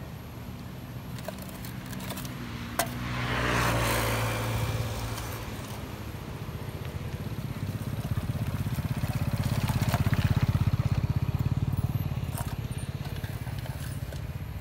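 A passing motor vehicle: a low, pulsing engine hum that grows louder to a peak about ten seconds in and then fades, after an earlier rush of noise that falls in pitch around three to five seconds in. A single sharp click just before three seconds in.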